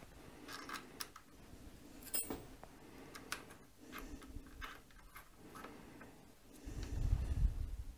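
Scattered light clicks and ticks of metal parts being handled as a DRO linear scale is set against a lathe's cross slide with an Allen key, with a dull low bump near the end.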